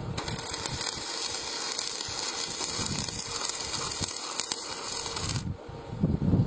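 Electric welding arc crackling and sizzling steadily for about five seconds, then cutting off suddenly as the arc is broken.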